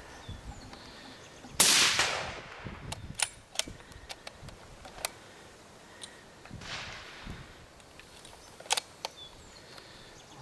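Rifle shots: one loud shot about a second and a half in, its report trailing off over the next second, and a second, fainter shot near the middle. Several sharp short clicks fall between them.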